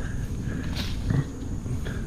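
Footsteps and rustling of wet brush while climbing a riverbank, over a steady low rumble, with a short brushing noise about a second in.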